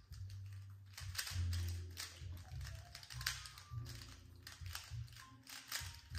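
Rapid plastic clicking of a Rubik's cube being turned layer by layer, several clicks a second, over background music with a steady low bass line.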